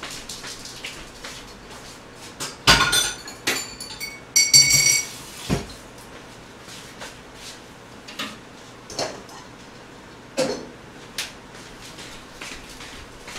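Dishes and cutlery clattering as they are cleared away and set down: scattered knocks, with two louder bursts of clinks about three and four and a half seconds in, the second ringing briefly.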